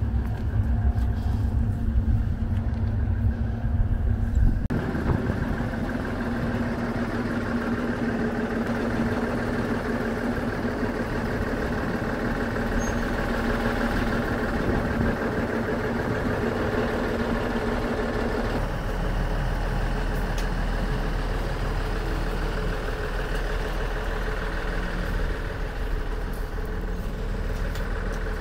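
Ikawa Line train and its ED90 electric locomotive running at a station: a steady machine hum with a held tone over a noisy rumble. The sound changes abruptly about five seconds in and again about two-thirds of the way through, the last part a deep steady rumble.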